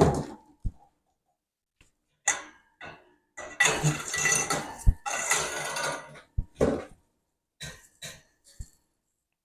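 Parts of a shelving unit being handled and fitted together: scattered knocks and clatters, with a longer stretch of rattling and scraping through the middle and one sharp knock within it.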